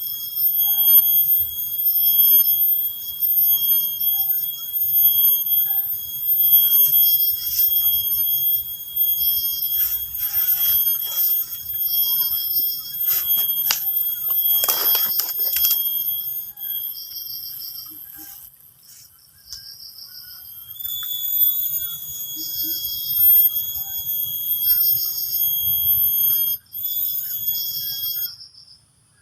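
Insects trilling in chorus: several steady high-pitched calls at once, one of them pulsing in short bursts. The chorus changes about two-thirds of the way through and breaks off near the end, with a brief swish about halfway.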